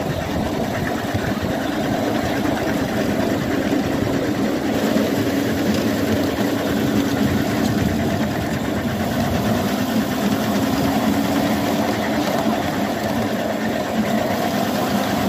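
A 7¼ inch gauge battery-electric miniature locomotive running along the track, making a steady mechanical running noise with a hum.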